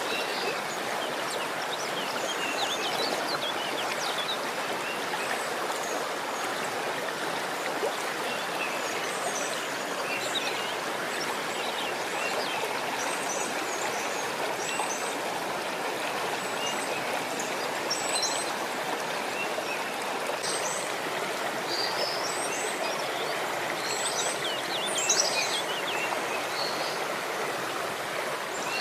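Steady rush of running water, with short high chirps and calls scattered through it.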